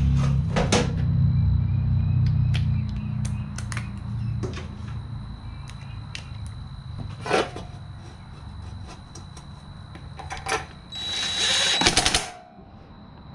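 Scattered metal clicks and knocks of a mini bike's chain cover and hand tools being handled, with a loud burst of rapid clicking about 11 seconds in, lasting just over a second. Low background music fades out over the first few seconds.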